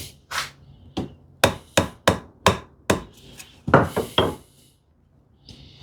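A hammer striking wood: about ten sharp blows in an uneven rhythm, with a short pause before the last three.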